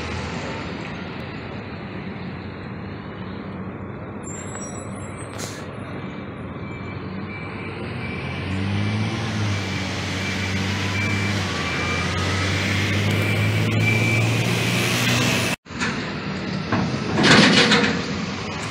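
Heavy vehicle engine running close by at a ro-ro ship's loading ramp, growing louder toward the middle, with a faint repeated beep. Near the end comes a short, loud hiss of air brakes.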